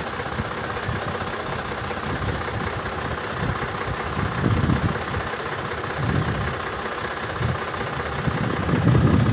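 Sonalika tractor's diesel engine idling with a steady low rumble that swells now and then.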